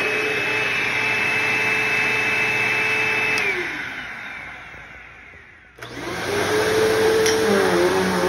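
Upright vacuum cleaner motor running with a steady whine, then switched off about three and a half seconds in, its pitch falling as it winds down. About two seconds later a second upright vacuum starts up, its motor rising quickly to a steady whine.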